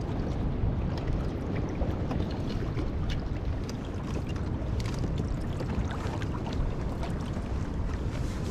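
Wind buffeting the microphone in a steady low rumble over choppy water, with many small splashes and drips scattered through it.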